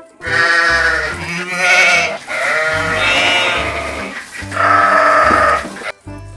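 Bleating livestock: three long, wavering bleats one after another, each about one and a half to two seconds long.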